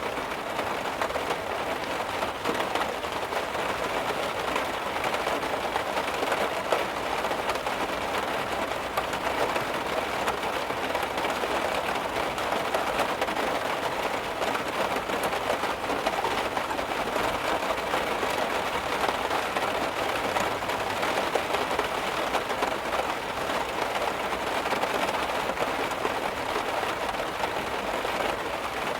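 Heavy rain drumming steadily on a car's metal roof and body, a dense unbroken patter of drops.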